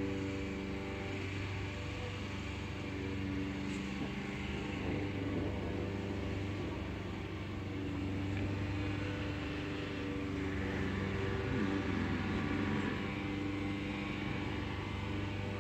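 A steady mechanical hum from a running motor or engine, holding an even pitch with small shifts. No thunder stands out.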